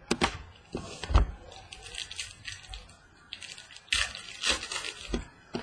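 Baseball trading cards and packaging being handled: rustling and crinkling broken by several sharp knocks.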